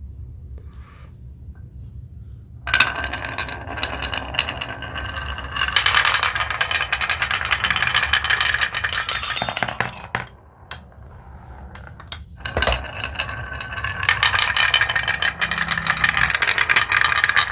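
Many marbles rolling and clattering down a marble run track in a dense rattle of clicks. The rattle starts suddenly about three seconds in, dies down briefly past the middle, then builds again.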